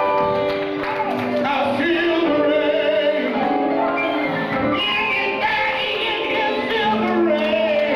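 Gospel singing into a microphone over instrumental accompaniment, with long held notes.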